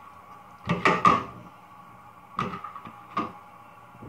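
A few sharp clicks and taps of small plastic items being handled: a quick cluster about a second in, then single clicks twice more.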